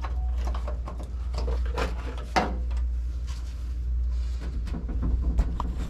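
Hand-handling noise of a rubber grommet and wiring being worked into a hole in a truck's steel firewall: rubbing, scraping and scattered clicks and knocks, with a sharper knock about two and a half seconds in. A steady low hum runs underneath.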